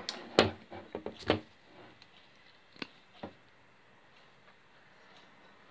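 Light knocks and clicks of things being handled and set down on a kitchen worktop: several in the first second and a half, two more about three seconds in, then quiet.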